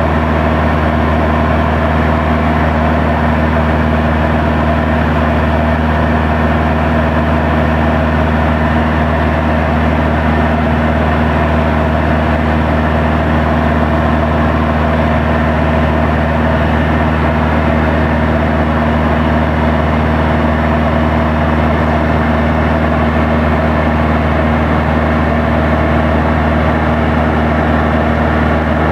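Van's RV-7 light aircraft's piston engine and propeller droning steadily at an even pitch in cruise flight, heard inside the cockpit.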